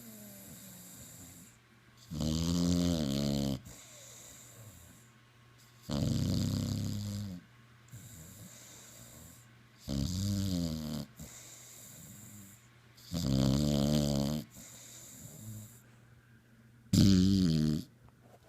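Snoring: five drawn-out snores about every four seconds, each a second or so long and wavering in pitch, with quieter breathing between them; the last snore is the loudest.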